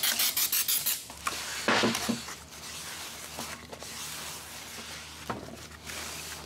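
Short bursts of aerosol cleaner sprayed onto a new brake rotor in the first two seconds. Then a shop towel rubs steadily over the rotor's metal face and hub, wiping off the factory anti-rust coating.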